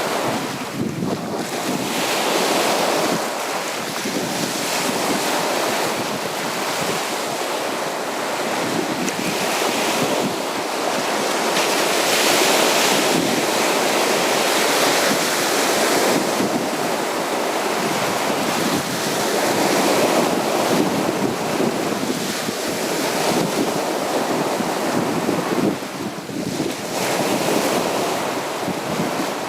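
Sea waves breaking and washing on a beach, a continuous rushing surf that swells and eases every few seconds.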